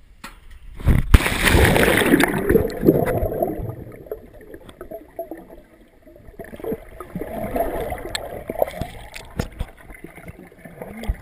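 A camera plunging into lake water with a loud splash about a second in, followed by muffled underwater gurgling and bubbling while it stays below the surface.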